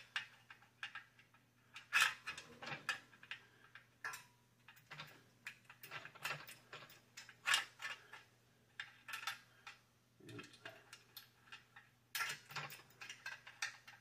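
Irregular metallic clicks and clinks of steel weight-bench tubing, brackets and bolts being worked by hand to bring a bracket into line with its bolt holes, with a few louder knocks.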